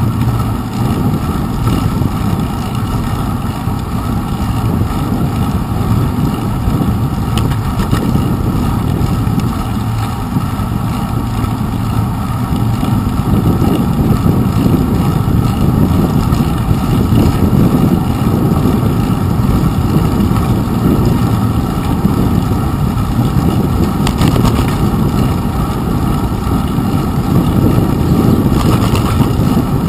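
Bicycle ride noise from a handlebar-mounted GoPro Hero 2: steady low wind and road rumble as the bike rolls along a wet paved path, a little louder in the second half, with a few light knocks from bumps.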